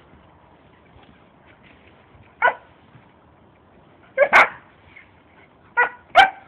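Short, sharp animal calls, five in all: one about two and a half seconds in, then two quick pairs.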